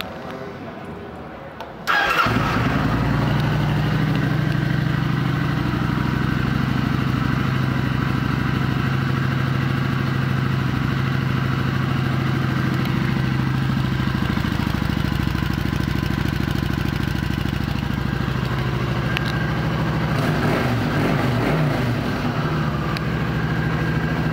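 2010 Kawasaki Vulcan 900 Classic's V-twin engine starting about two seconds in, then idling steadily; the note shifts briefly about twenty seconds in.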